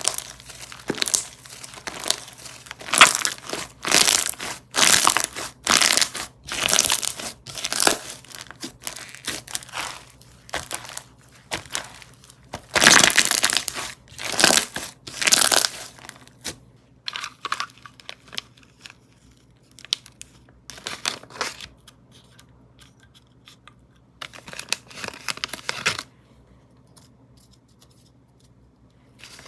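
Slime being squeezed and pressed by hand, making a rapid run of short crinkly, crackling pops. The pops thin out about two-thirds of the way through, with one more burst near the end.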